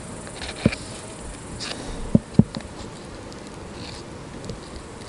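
A knife cutting soft, slimy gel bait in a small plastic cup, with three sharp knocks of the blade against the cup, the first about a second in and two close together about two seconds in.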